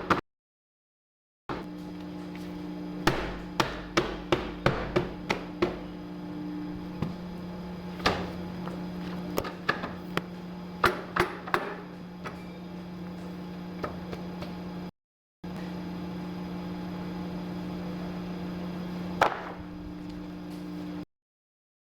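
Electric paper guillotine cutter humming steadily, with runs of sharp knocks and clacks from the machine and the paper stack being handled. The sound drops out abruptly a few times.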